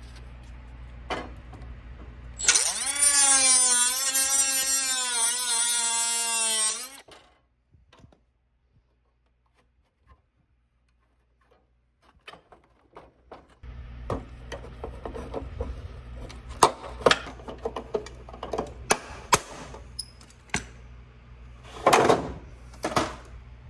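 Power drill/driver running for about four seconds, its motor whine wavering in pitch as the load changes. Later come repeated sharp clicks and knocks of parts being handled.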